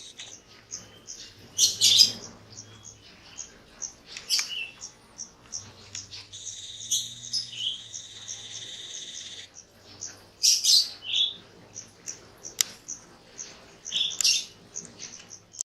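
Wild birds chirping and calling: many short, high chirps throughout, with louder bursts of calls about two seconds in, around four seconds, near eleven seconds and near the end. A steady high buzz or hiss runs for about three seconds in the middle.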